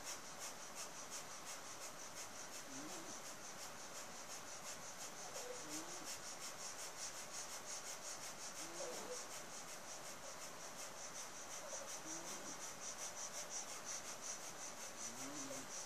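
Breath of fire: fast, forceful exhalations through the nose pumped from the navel, an even rhythmic hissing of several breaths a second. A dog whines faintly every few seconds.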